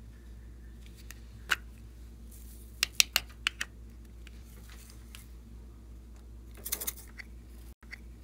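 Sharp, sticky clicks and pops of slime being worked by hand. They come as one click, then a quick run of about five, then a short crackling cluster near the end, over a faint steady low hum.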